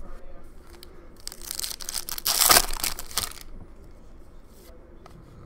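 Foil wrapper of a hockey card pack crinkling and tearing in a loud rustle of about two seconds, at its loudest about halfway through, with light card handling before and after.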